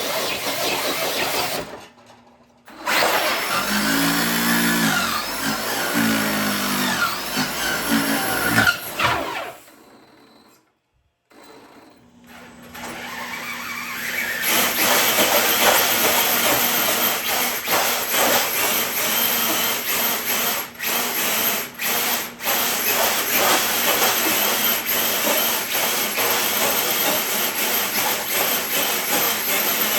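Radio-controlled truck running, its motor and drivetrain whining with the pitch rising and falling as it throttles, cutting out briefly twice.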